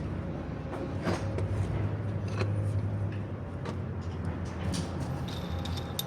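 Steady low mechanical hum with light clicks and knocks roughly once a second.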